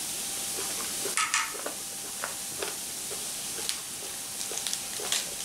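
Squid tentacles sizzling on a tabletop grill: a steady hiss with scattered small pops and clicks, a few louder ones about a second in.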